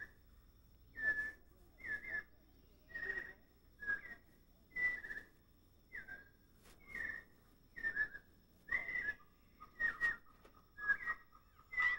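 An animal's short whistled call, repeated about once a second at much the same pitch, each note sliding slightly.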